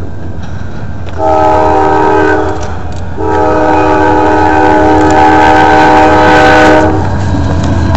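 CSX freight locomotive's multi-note air horn sounding two blasts, a short one about a second in, then a long one of nearly four seconds.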